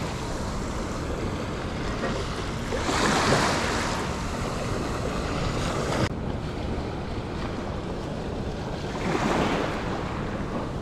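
Surf washing onto a shallow sandy shore, swelling louder twice, with wind buffeting the microphone.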